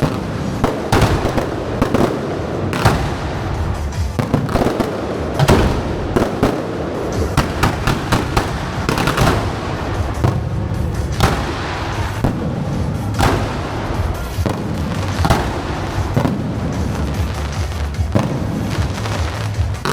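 Fireworks display going off continuously: a dense, unbroken run of bangs, booms and crackles, with music playing underneath.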